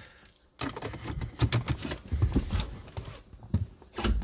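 Handling noise: rustling with a string of small clicks and knocks, and a low thump near the end, as the hand-held phone and the driver shift about in the car.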